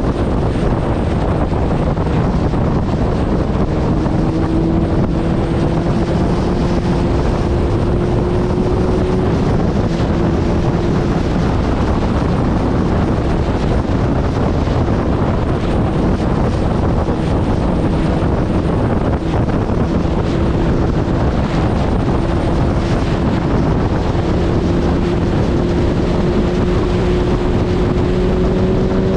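Suzuki Hayabusa's inline-four engine running at a steady highway cruise, its note rising gently a few times under a heavy, constant rush of wind on the microphone.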